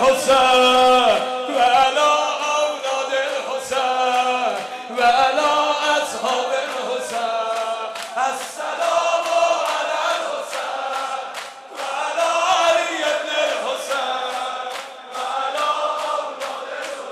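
A male lamenter chanting a Muharram noha with a congregation singing along in chorus, over a steady beat of hands striking chests (sineh zani).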